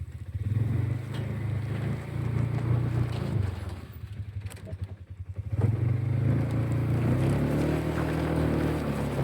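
A vehicle engine running close by, its speed and load rising and easing off, with a dip of about two seconds midway before it picks up again.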